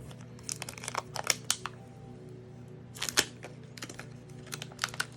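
Plastic protective wrap being peeled off a replacement laptop battery, crinkling: a run of irregular crackles and clicks, loudest about three seconds in, over soft background music.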